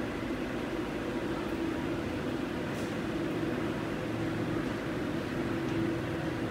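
Steady mechanical hum over an even hiss, unchanging throughout.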